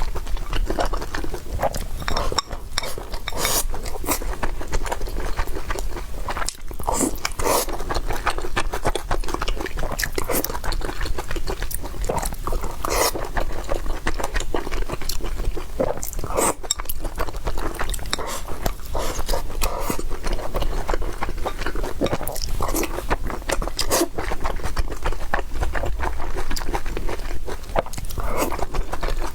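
Close-up chewing and mouth sounds of a person eating, irregular wet smacks and soft crunches, with occasional light clicks of utensils.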